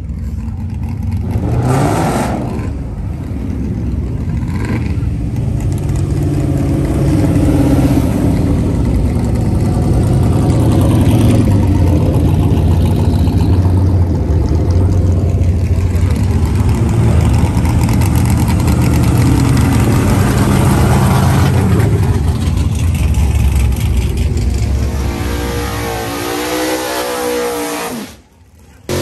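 Motor vehicle engine running loud and steady, its pitch rising as it revs near the end, then cut off suddenly.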